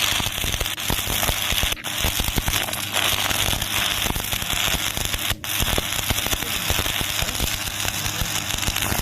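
Electric arc welding: the arc's steady, crackling sizzle with a low hum underneath, cutting out for an instant twice.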